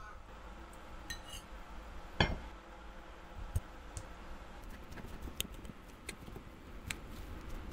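A metal fork clinking and scraping against a ceramic plate while mashing boiled potatoes, in scattered light clicks, with one louder knock about two seconds in.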